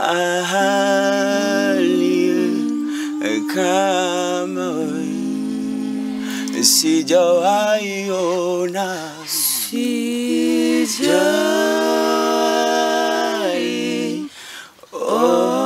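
A small group singing a gospel song a cappella, with several voices and humming, and long held notes. There is a short break near the end before the next phrase comes in.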